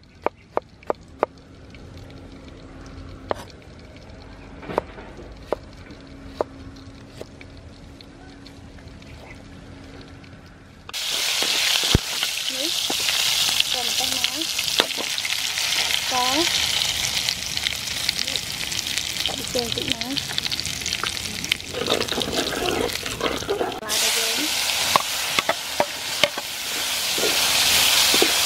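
A knife tapping on a wooden cutting board as peppers are chopped, sharp knocks at first, then sparser. About a third of the way in, loud frying begins abruptly: chopped chilli and diced bell peppers sizzling in hot oil in a steel wok, with a metal spatula scraping and squeaking against the pan as it stirs.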